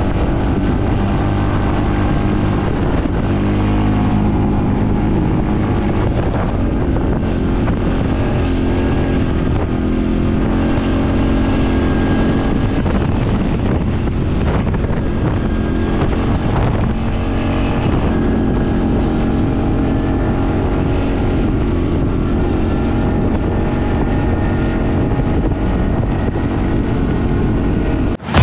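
CFMOTO CForce quad's engine running steadily while riding, its pitch rising and falling as the throttle changes.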